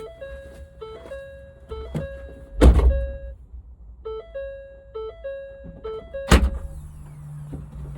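Simple electronic background melody of stepped notes, broken twice by a loud heavy thump, about two and a half seconds in and again about six seconds in, with a low steady hum setting in after the second thump.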